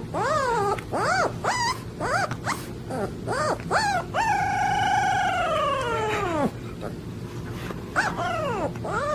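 A young puppy howling: a run of short calls that rise and fall in pitch, one long drawn-out howl about four seconds in that drops away at its end, then a few more short calls near the end.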